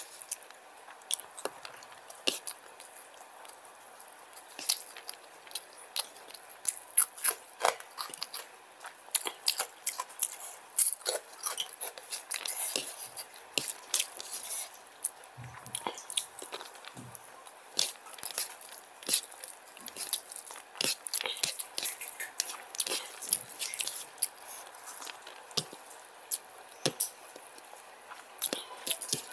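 Close-miked eating by hand: chewing mouthfuls of rice and paneer curry, with fingers squishing rice and curry together on the plate, heard as a run of irregular short clicks and smacks.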